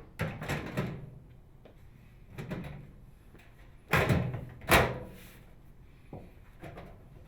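Metal outer cover of a Frigidaire microwave oven being fitted onto the cabinet and knocked into place: a series of clunks and scrapes, with two loud knocks a little under a second apart about four seconds in.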